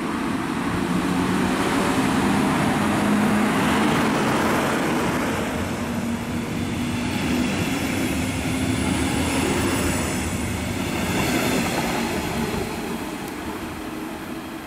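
Electric locomotive hauling double-deck regional coaches passing at speed: a steady hum from the locomotive comes first, then the running noise of the coaches' wheels on the rails, fading as the train draws away near the end.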